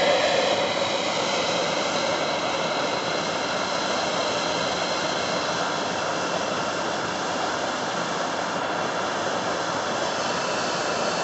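Handheld propane torch flame hissing steadily as it burns clogged carbon and old oil out of a two-stroke string trimmer's muffler and spark arrester screen.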